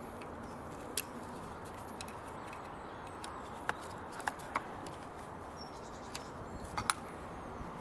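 A few light clicks and taps, about five spread over several seconds, from hands working loose parts and a removed clip in a car's engine bay, over a steady background hiss.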